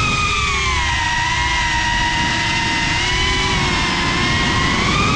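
GePRC Cinelog35 FPV cinewhoop's brushless motors and ducted propellers whining. The pitch falls about a second in, holds steady, then rises again near the end as the throttle changes.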